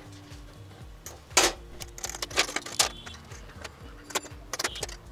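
LED TV backlight strips being handled and pulled out of the TV's back chassis: a loose string of sharp clicks and clattering knocks.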